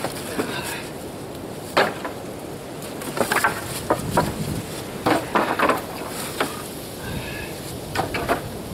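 Pieces of firewood knocking and clattering together as they are picked up and tossed onto a pile: a string of sharp, irregular knocks over a steady rush of wind.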